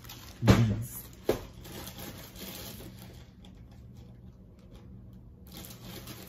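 Two knocks of objects being handled in the kitchen, a loud one about half a second in and a lighter one a second later, followed by quieter rubbing and handling sounds over a steady low hum.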